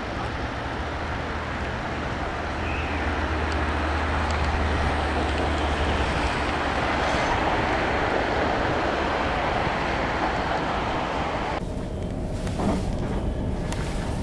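Steady rushing outdoor noise on an open seafront, then an abrupt change about twelve seconds in to the inside of a passenger train carriage: low running rumble with faint clicks and rattles.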